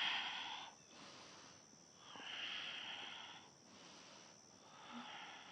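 A woman's deep, audible breathing close to a clip-on microphone: three long, hissing breaths about two seconds apart, the first the loudest, with softer breaths between them.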